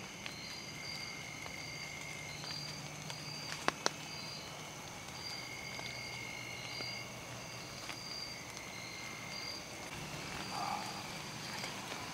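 Evening chorus of insects: several steady high-pitched trills, with one pulsed call repeating about twice a second. Two sharp clicks come close together about four seconds in.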